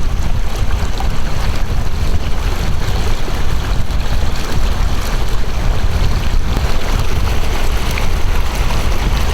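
Wind buffeting the microphone: a loud, steady, rough low rumble with a fluttering hiss above it.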